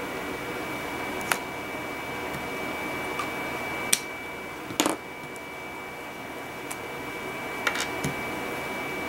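A handful of light clicks and taps from test tubes and a plastic transfer pipette being handled, the sharpest about four and five seconds in, over a steady room hum with a faint high whine.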